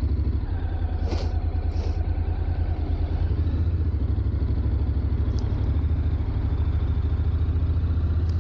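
Honda NC750X's parallel-twin engine running steadily at low revs with an even, low pulsing note. There are two brief rustles about a second in.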